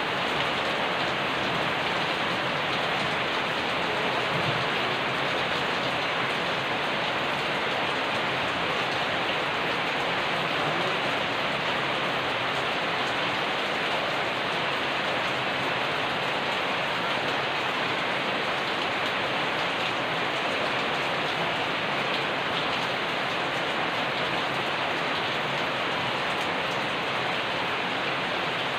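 Steady rain falling and pattering on a surface, an even hiss that does not change.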